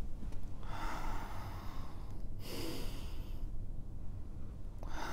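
A man breathing out hard through his nose while drinking from a glass, three breaths in a row, the last one short near the end.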